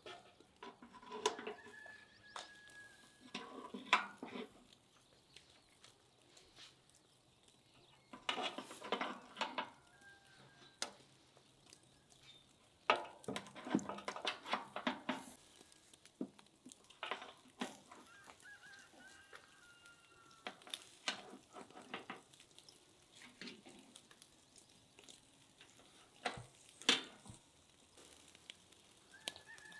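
Farmyard fowl calling in scattered bursts of clucking and honking, with a few thin bird chirps in between.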